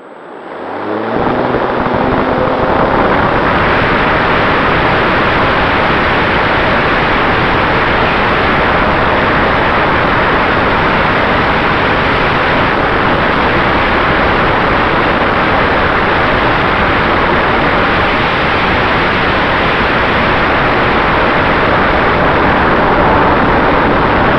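Brushless electric motor and propeller of an RC P-51D Mustang throttling up, its pitch rising over the first couple of seconds, then a steady loud rush of motor, prop and wind noise picked up by the camera on board.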